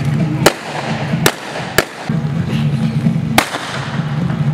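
Four sharp gunshots, the first about half a second in, two more close together near 1.2 and 1.8 seconds, and the last about 3.4 seconds in, fired by armed police special-forces officers in a staged tactical assault. Music plays steadily underneath.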